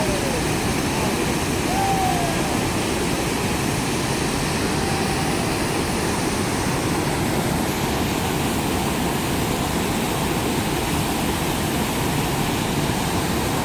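Steady rush of water pouring over a large waterfall on the Youghiogheny River.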